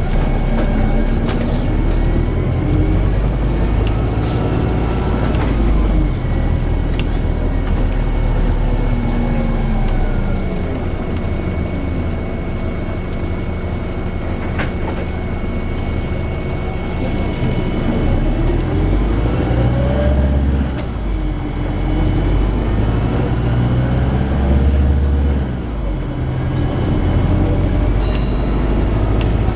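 Volvo B5LH hybrid double-decker bus on the move: a low rumble with a whine that rises and falls in pitch as it speeds up and slows, a steady high tone, and a few short sharp bangs.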